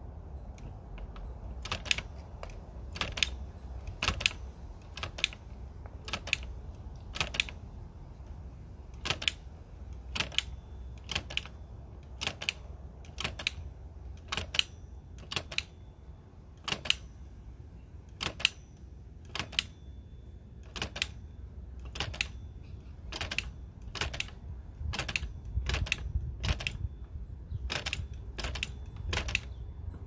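Merritt index typewriter printing characters one at a time: sharp metallic clicks at a slow, uneven pace of about one or two a second, as the pointer is pressed down on the letter index for each character.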